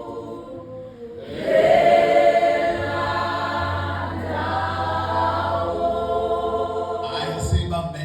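A church choir or congregation singing a gospel song together, many voices over a steady low note.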